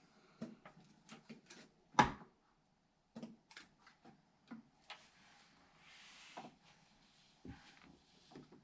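Scattered small clicks and knocks of computer parts being handled and fitted during a PC build, with one sharper knock about two seconds in.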